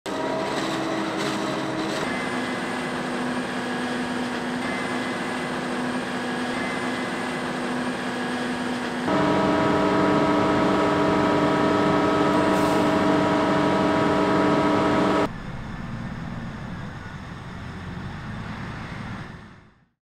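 Forage-harvesting machinery running steadily, a mechanical hum with several whining tones held through each stretch. It changes abruptly about 2, 9 and 15 seconds in, is loudest between the second and third changes, and fades out near the end.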